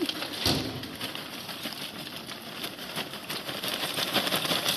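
Lump charcoal pouring from a paper sack into a metal barbecue bowl: a dense patter of small clattering knocks, which gets busier in the second half.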